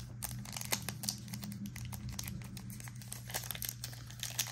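Plastic wrapper of a Donruss basketball trading card pack crinkling and crackling in quick irregular bursts as fingers work it open at its sealed end.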